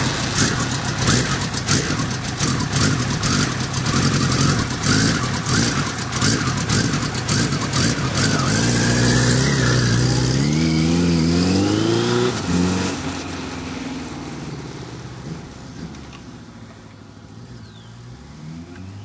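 Kawasaki Z1000 LTD's air-cooled inline-four running under way, with wind rushing over the microphone for the first several seconds. About eight seconds in, the engine revs up through the gears, its pitch rising in steps, then fades as the bike rides off.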